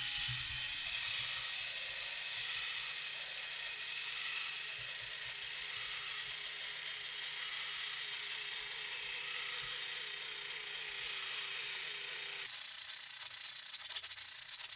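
MG995 servo modified for continuous rotation running under strain as it drives a quarter-inch threaded rod to raise the 3D-printed landing gear. The rod has jammed, and the strain is forcing the frame halves apart and ripping out the threaded inserts: the sound of the frame breaking. About twelve and a half seconds in, the steady run stops suddenly and gives way to irregular clicks.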